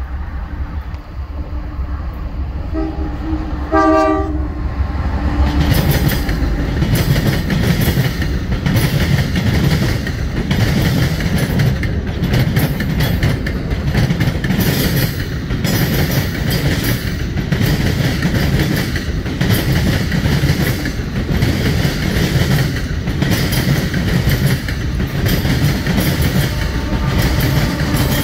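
A BNSF freight train's horn sounds briefly about three to four seconds in as the train approaches. Then a lead consist of several diesel-electric locomotives passes close by, their engines rumbling and their wheels clattering over the rail joints in a steady, repeating rhythm.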